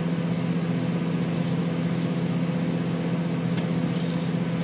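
Microwave oven running, a steady hum, with a smoking compact fluorescent lamp inside; one sharp click about three and a half seconds in.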